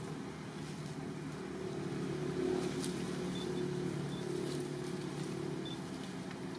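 Steady low engine hum, swelling a little louder about two seconds in and easing off again.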